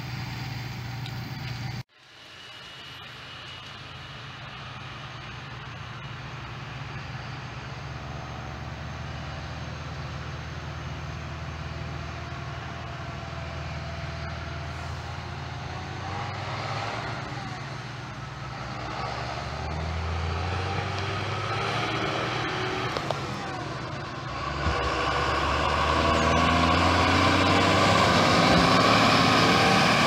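A John Deere tractor's diesel engine, pulling two tandem-axle grain trailers along a road, grows steadily louder as it approaches and is loudest as it passes close by near the end. The sound of an earlier shot cuts off abruptly about two seconds in.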